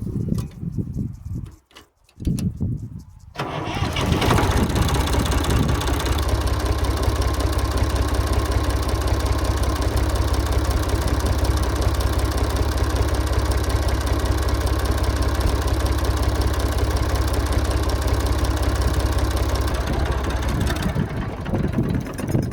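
Massey Ferguson 135 tractor engine starting about three seconds in, then running at a steady idle on fresh oil and a new filter, before it is shut off near the end.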